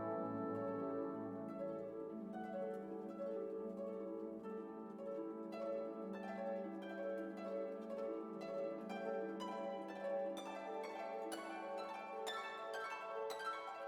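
Instrumental background music: a quick run of short plucked-string notes over a held low note.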